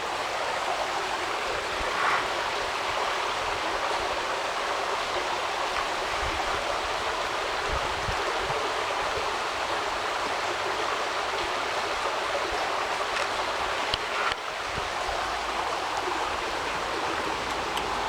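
Small mountain creek running over rocks: a steady rushing hiss of water, with a couple of faint knocks.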